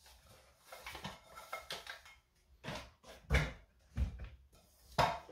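A nested aluminium camping pot set being handled and taken out of its mesh carry bag: soft rustling, then several short, dull knocks in the second half.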